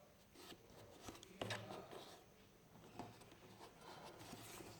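Near silence, with a few faint knocks and rubs from handling the plastic body of a pressure washer, the clearest about a second and a half in and again about three seconds in.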